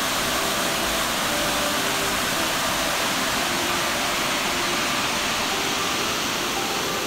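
Small waterfall: white water tumbling over boulders into a pool, making a steady, even rush of noise.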